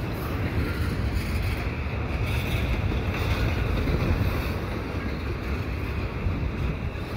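Wind buffeting the microphone over the steady rumble of a string of double-stack container cars rolling past on the rails.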